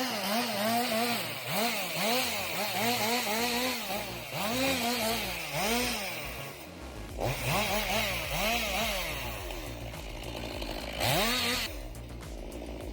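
Chainsaw cutting, its engine pitch repeatedly dipping and recovering about twice a second as the chain bites into the wood, with a short break midway; it stops near the end.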